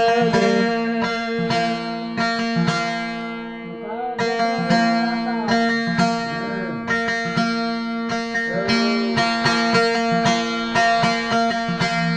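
Instrumental interlude of a Rajasthani desi veena, its strings plucked in a quick, even rhythm over a steady drone, with a gliding melody line coming in now and then.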